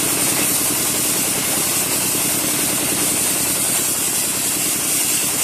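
Wet sandblasting machine running: a steady high hiss of air and water spray over a constant engine hum.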